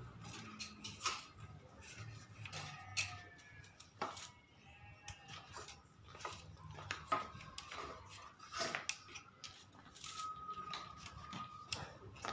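Irregular light clicks and taps as thin black bars are pushed into the drilled holes of a wooden birdcage frame, one after another.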